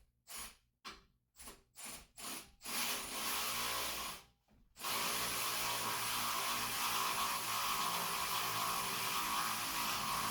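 A power tool run in about six short bursts, then held on in two longer steady runs of several seconds.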